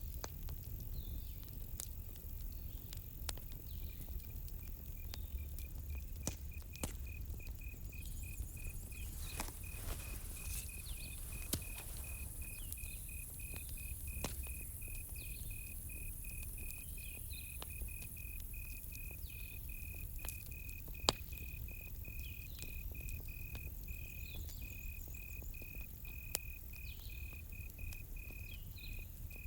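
Campfire crackling with scattered sharp pops over a low steady rumble, and a cricket chirping in fast, even pulses from about four seconds in.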